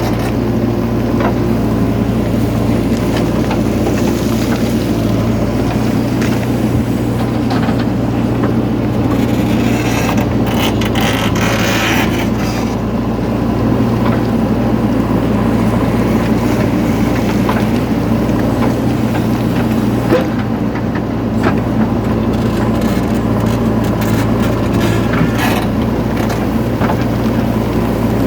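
JCB 3DX backhoe loader's diesel engine running steadily while it works soil. There are short spells of scraping and clatter a third of the way in, and a single knock about two-thirds through.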